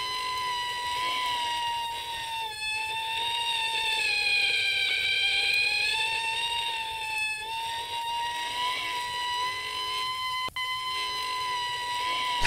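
A long, high-pitched held tone that wavers slightly and sags a little in pitch through the middle, broken briefly twice.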